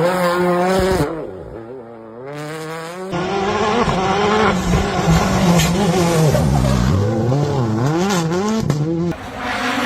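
Rally car engine at high revs, cutting back sharply about a second in, then accelerating hard again and revving up and down repeatedly, with a sudden lift-off near the end.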